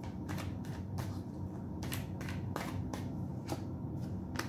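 A tarot deck being shuffled by hand: a string of short, crisp card flicks and slaps at irregular intervals, over a faint steady low hum.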